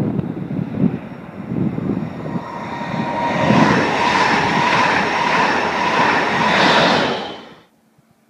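A double-deck IC2 intercity train passing close at speed: a rushing noise of wheels on rails and air, with a steady whine through it. It builds from about two seconds in and stays loud, then cuts off abruptly near the end. Wind buffets the microphone at the start.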